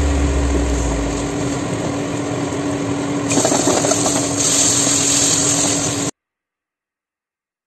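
Coriander paste being stirred and scraped with a perforated metal spatula in an iron kadai over a steady kitchen hum with a constant tone. The sound cuts off abruptly to silence about six seconds in.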